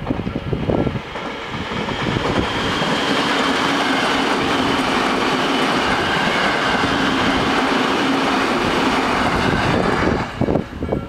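Electric commuter train passing over a level crossing. Wheels clack over the rail joints as it arrives, then a loud, steady rush and rumble lasts about eight seconds. Near the end it falls away into more wheel clacks.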